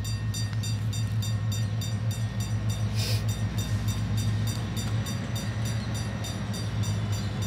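Diesel freight locomotive running as it approaches, a steady low engine rumble, with a faint fast regular ticking over it.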